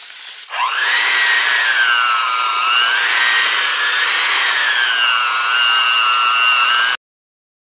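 Electric hand mixer starting up about half a second in and running, its motor whine rising quickly and then wavering in pitch as the beaters work through cream cheese in a stainless steel bowl for a cheesecake filling. It cuts off suddenly near the end.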